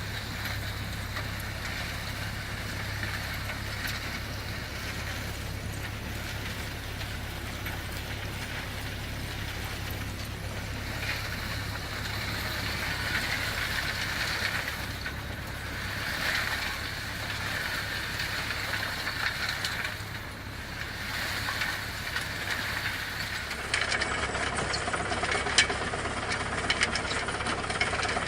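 Komplet DS 1020 compact trommel screen's engine running steadily with a low hum. About 24 s in the sound changes abruptly to a busier running noise with many sharp clicks and rattles.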